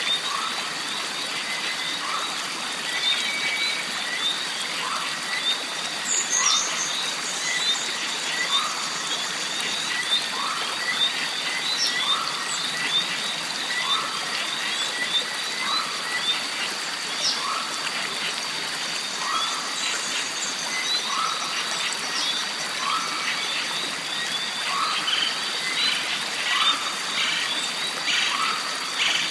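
Jungle stream ambience: water running under a steady high insect drone and dense clicking. A short animal call repeats evenly about every second and a half to two seconds.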